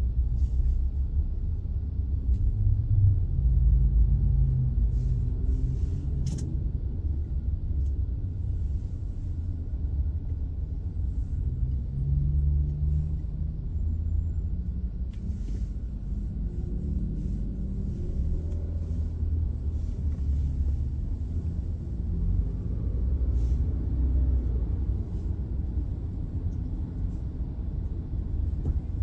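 Low steady rumble of a Toyota car's engine and road noise heard from inside the cabin while driving, with the engine note rising now and then as it picks up speed. A single sharp click about six seconds in.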